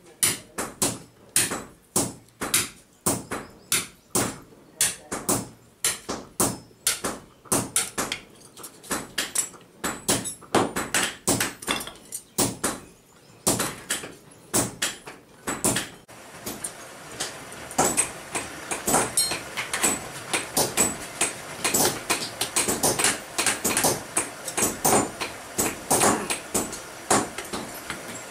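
Hand hammer blows on red-hot steel on an anvil, forging a ball peen hammer head, in a steady rhythm of about two strikes a second. From about halfway, a steady noise sits under the strikes.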